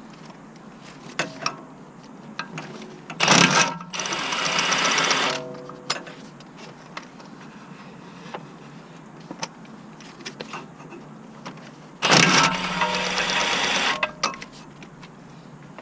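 A cordless power tool, such as an impact gun or electric ratchet, runs in two bursts of about two seconds each, one about three seconds in and one about twelve seconds in, each starting sharply and then holding a steady buzz. Small clicks and knocks of tools being handled come between the bursts.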